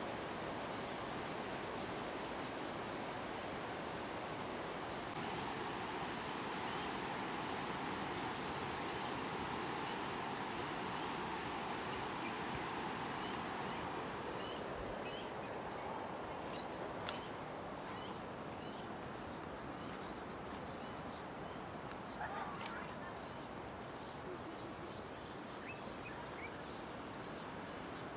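Steady rushing of the River Nile rapids, with a continuous high trill of crickets and rows of short high chirps over it. The rush eases a little about halfway through, and a few louder bird calls come in later.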